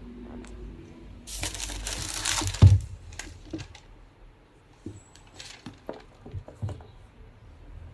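Plastic and paper packaging crinkling and tearing as a product box is unwrapped, then a sharp thump and a run of small clicks and taps as the packaging is handled.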